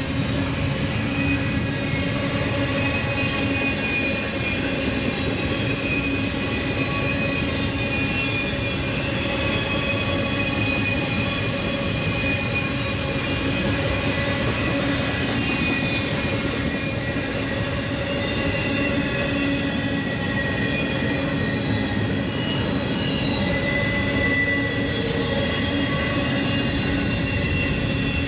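Fast intermodal freight train rolling past: a steady rumble of steel wheels on rail, with several thin, high squealing tones held over it.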